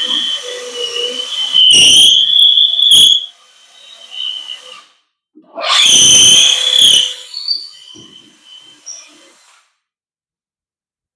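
DeWalt brushless cordless hammer drill running with a high motor whine, twice breaking into a loud, harsher noise for a second or so as it works under load. It winds down and stops about two-thirds of the way in.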